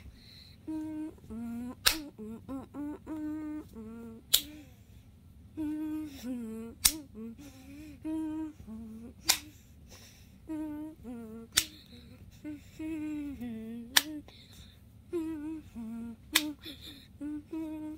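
A child humming a wordless tune in short phrases, with a sharp click about every two and a half seconds.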